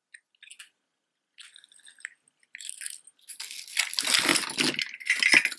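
Costume jewelry clinking and rattling as pieces are handled and sorted through: a few light clicks first, then a louder jumble of jingling metal and beads from about two and a half seconds in.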